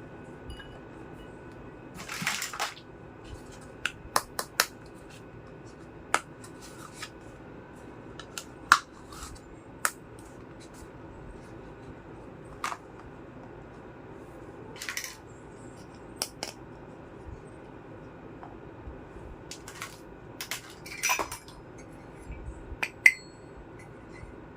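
Miniature toy kitchenware being handled and set down: a scattered series of light clicks and small clatters, with a few brief rustling or scraping moments between them.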